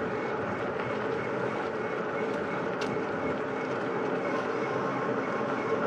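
A vehicle driving along steadily, giving a constant drone of engine and road noise.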